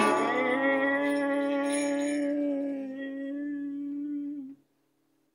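A man's voice holding a long final sung note over an acoustic guitar, ending the song; it cuts off suddenly about four and a half seconds in.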